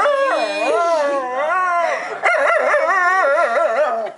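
Cocker spaniel howling in long, wavering calls: one call breaks off about halfway through, and a second follows straight away.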